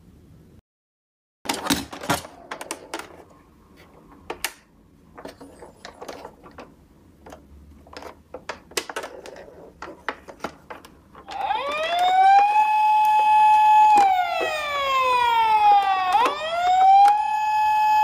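Plastic toy ambulance being handled, with a run of small clicks and knocks. About eleven seconds in, its electronic siren switches on: a wail that rises, holds and slowly falls, twice over.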